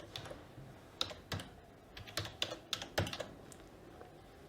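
Typing on a Logitech K480 Bluetooth multi-device keyboard: irregular keystroke clicks that stop about three seconds in.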